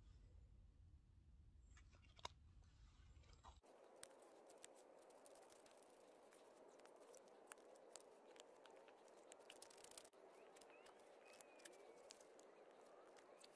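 Faint, scattered scraping and clicking of a knife blade shaving the edge of a small wooden cutting board. Near-silent overall.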